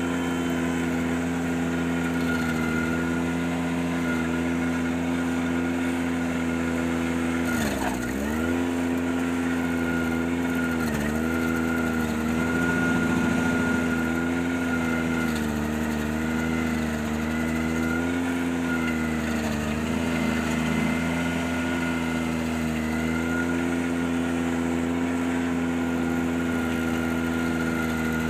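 Ventrac 4520Z tractor engine running at high speed, driving the stump grinder attachment. Its pitch sags briefly several times as the grinder takes load, the deepest dip about a third of the way in. A thin steady whine runs under it.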